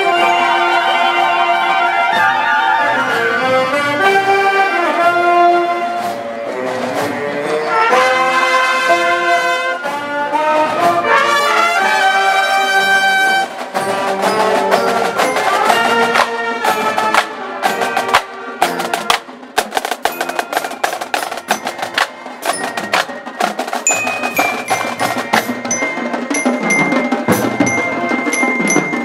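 Marching band: brass playing a tune over drums for about the first half, then the brass drops out and the drums, bass drums among them, carry on alone with a steady beat. A high steady tone joins the drums near the end.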